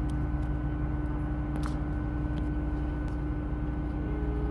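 Hitachi class 800 bi-mode train running on its underfloor diesel engines as it pulls away, heard from inside the carriage: a steady low drone with a constant hum above it and a single faint click partway through.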